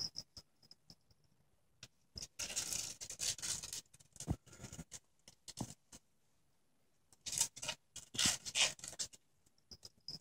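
Scratching and rustling from a ferret and a kitten at play, with light clicks and two longer bouts of scrabbling and rustling, one early and one late.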